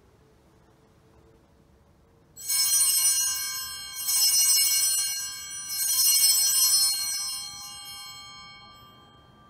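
Altar bells rung three times, each ring a cluster of bright chiming tones; the first comes about two and a half seconds in, and they fade away slowly near the end. It is the signal for the elevation of the chalice at the consecration.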